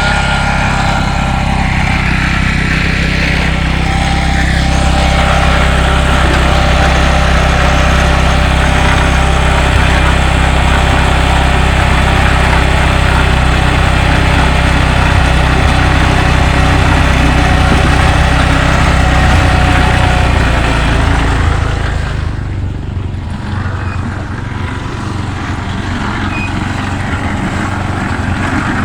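Concrete mixer's engine running steadily with a low drone and some higher whining tones. About three-quarters of the way through the sound drops and thins.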